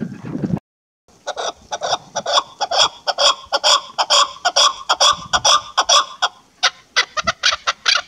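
Chukar partridge calling: a rapid run of short chuck notes, several a second, after a brief dropout about half a second in.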